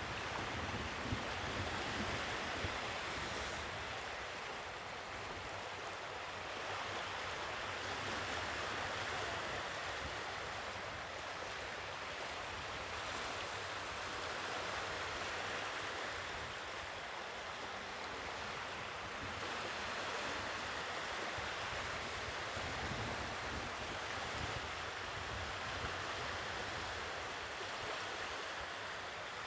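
Sea waves washing onto the shore, a steady rush that swells and eases every few seconds.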